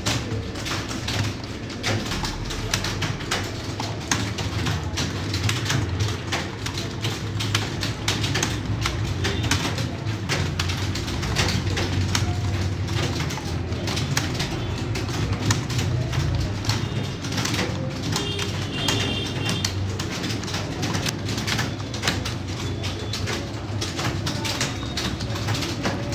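Many computer keyboards clattering at once: a room of people touch-typing a timed exercise, a dense irregular run of key clicks over a steady low hum.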